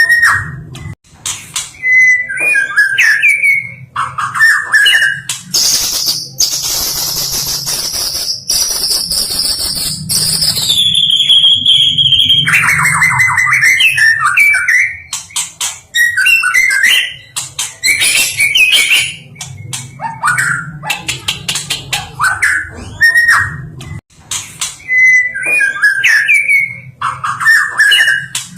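White-rumped shama (stone magpie, murai batu) singing a loud, varied song of short whistled phrases and rapid chattering trills, with a long high whistle about six seconds in that steps down in pitch near the middle.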